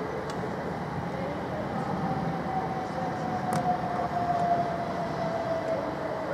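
c2c Class 357 Electrostar electric train at the station, with a steady rumble and a faint whine that falls slightly in pitch over a few seconds.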